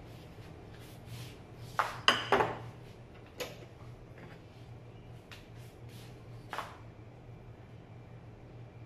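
Metal cookware clanking: a quick cluster of clanks with a short metallic ring about two seconds in, then single knocks at about three and a half and six and a half seconds.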